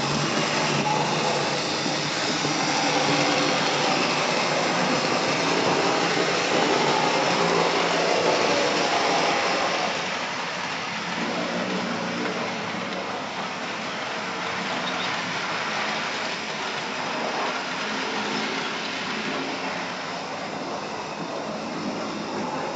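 Model diesel locomotives (M62 and TE3 models) running along the track: a steady whirring noise from their small electric motors and wheels on the rails, a little quieter from about ten seconds in.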